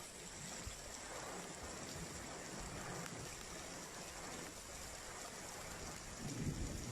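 Steady rain falling, an even hiss. A low rumble of thunder begins to build near the end.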